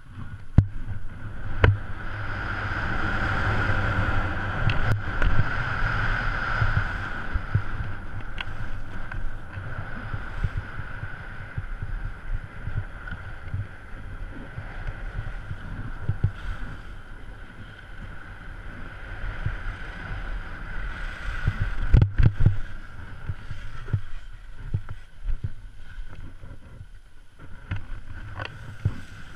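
Skis sliding and scraping over groomed snow during a downhill run, with rushing air noise on the camera's microphone and scattered sharp knocks, the loudest about three-quarters of the way through.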